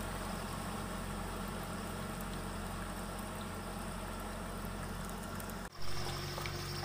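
Mahindra tractor's diesel engine running steadily at a low, even hum. About five and a half seconds in, the sound cuts off abruptly.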